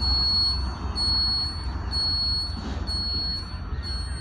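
Electronic tone from a WD-SWIZZ(3D) groundwater detector during a rotary scan: a steady high-pitched tone that breaks off briefly about once a second, over a low rumble.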